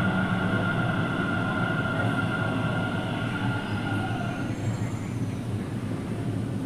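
Delhi Metro train heard from inside the car, the steady rumble of the train running with a high whine that fades out about four and a half seconds in, as the train slows into a station.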